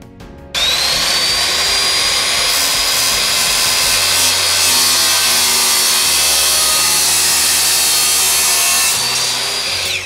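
Miter saw with an abrasive metal-cutting disc starting up with a rising whine about half a second in, then grinding steadily and loudly through a thin painted metal border strip, and winding down near the end.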